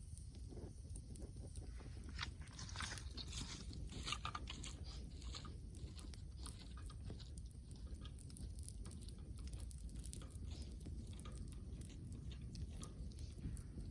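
Wood bonfire burning, with irregular crackles and pops over a steady low rumble of the flames; the crackling is busiest a couple of seconds in.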